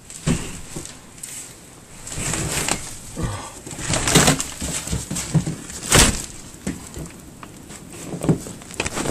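Irregular crunching and rustling of someone wading through deep, drifted snow, with several sharp thumps along the way.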